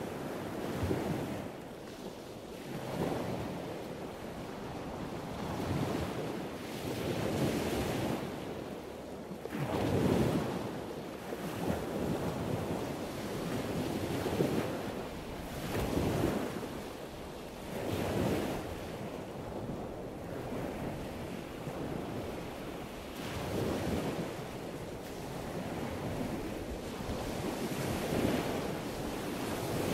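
Strong wind buffeting the microphone in uneven gusts, over the rushing noise of a choppy, whitecapped sea.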